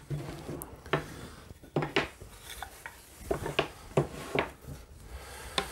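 Plywood boards and square wooden strips being picked up and set down on a table, giving a string of light, irregular wooden knocks and clacks.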